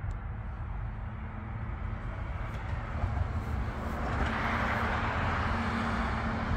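Road traffic noise: a steady low rumble, with a rushing sound of a passing vehicle growing louder about four seconds in.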